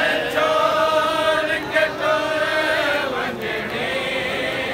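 Men's voices chanting a noha, a Shia mourning lament, in long held notes with short breaks between phrases.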